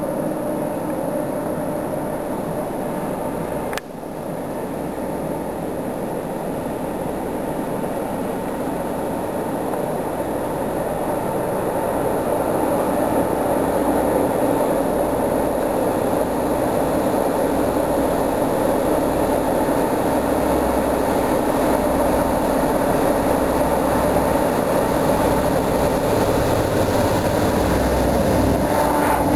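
A Dv12 diesel locomotive's SACM MGO V16 four-stroke engine drones steadily as the locomotive approaches hauling a freight train, growing louder until it passes close by near the end.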